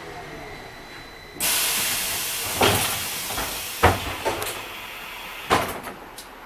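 Compressed air hissing out of a VMZ-6215 trolleybus's pneumatic system as it stops, with the door leaves clunking open: several sharp knocks follow while the hiss slowly fades.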